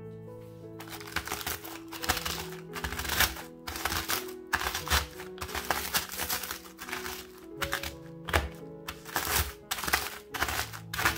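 Dry biscuits cracking and crunching as a wooden rolling pin presses them inside a plastic zip-top bag, with the bag crinkling, in irregular sharp cracks starting about a second in, over background music.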